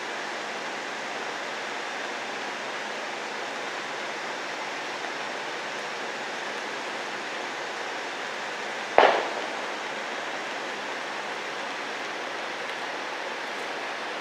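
Steady rain falling, with a single sharp knock about nine seconds in.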